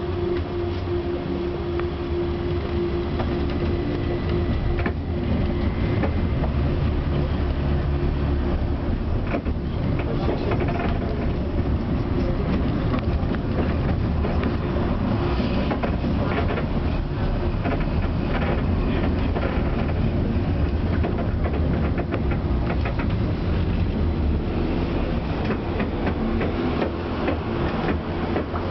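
Tram in motion, heard from inside the car: a steady rumble of wheels on rails with rattling and frequent clicks. A steady hum is heard at the start and again near the end.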